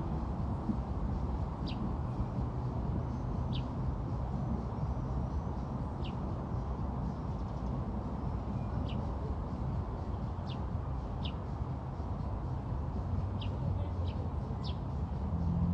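A small bird gives short, high chirps, each a quick downward note, about nine of them spaced irregularly, over a steady low outdoor rumble.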